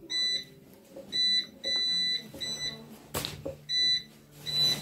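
Hoverboard warning beeper sounding a run of high beeps of uneven length, set off as the board is tipped or overrun when the rider comes off. A single sharp knock about three seconds in.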